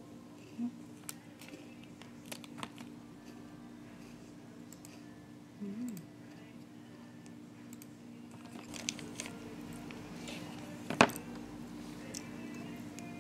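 A steady low hum with scattered small clicks and some rustling. About eleven seconds in comes one sharp, crisp snap as a chocolate snack bar is bitten.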